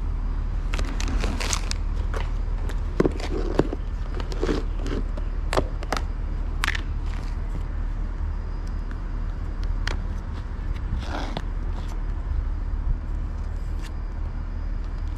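Dry kibble clicking and rattling in a plastic tub as it is handled and a cat eats from it, in scattered clicks and scrapes over a steady low rumble.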